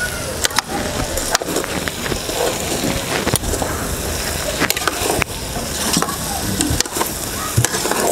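Metal spoon stirring okra stew in an aluminium pot, scraping through the stew and clicking against the pot's side and bottom at irregular intervals.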